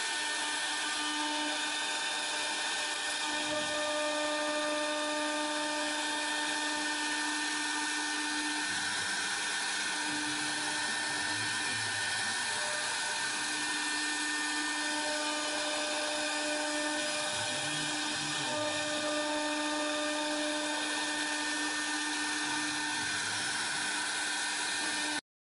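Air-cooled 3 kW spindle of a CNC router running at high speed and cutting hardwood: a steady high whine over a constant hiss, with some of its tones dropping in and out as the cut goes on. It cuts off suddenly at the very end.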